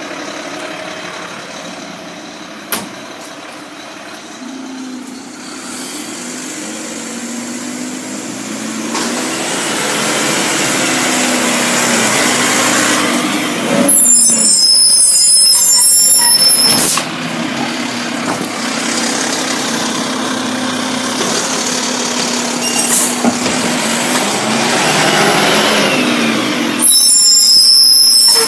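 Mack garbage truck with a Heil DuraPack Python automated side-loader driving off, its engine rising in pitch as it pulls away. Loud air-brake hisses come as it stops, once about halfway through and again near the end.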